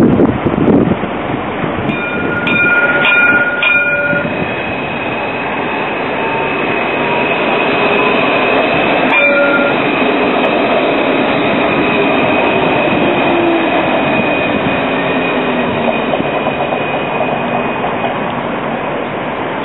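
Alstom Citadis light-rail trams running, a steady rolling rumble carrying a thin high whine, with a fainter whine that glides up and down in pitch partway through.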